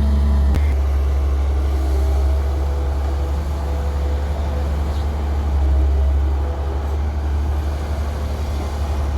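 Heavy diesel engine running steadily with a deep drone, from an excavator loading mud into a dump truck. There is a faint click under a second in and a sharp knock at the very end.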